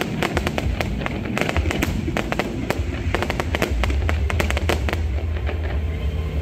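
Aerial fireworks bursting in rapid succession: a dense run of crackling bangs over a deep rumble, thinning out near the end.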